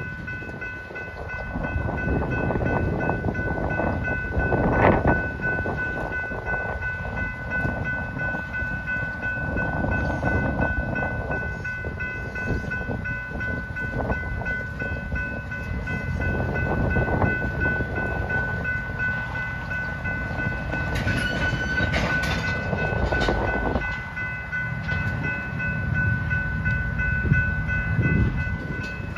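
Freight train of tank cars rolling slowly past, wheels and couplers giving a steady low rumble with occasional clacks and knocks. A steady high-pitched tone runs underneath.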